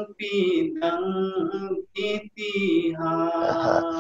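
A man's unaccompanied voice chanting a devotional naat in melodic sung phrases with short breaks, ending on a long held note.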